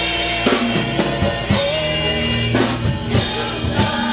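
Live gospel music from a church choir and band: keyboard and a drum kit keeping the beat under the choir's voices.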